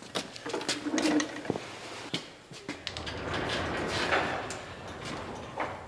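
Metal clinks and knocks as a rebuilt engine is freed from its engine stand, then a longer rattling rumble about halfway through as it is moved on a chain hoist, with a few more knocks.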